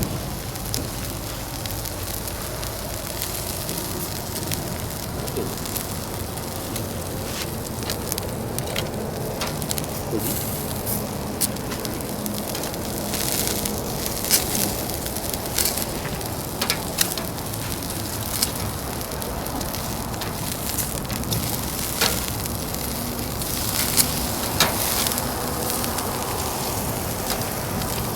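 Food sizzling on a grill over the fire of a Uniflame Fire Grill fire stand, with scattered sharp crackles and pops from the fire throughout.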